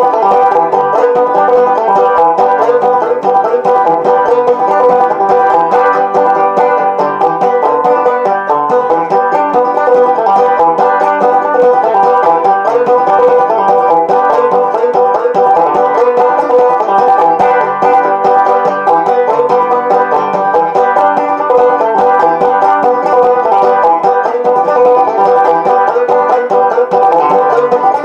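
Five-string banjo played solo in clawhammer style: a steady, unbroken stream of plucked notes and brushed strums in an old-time tune.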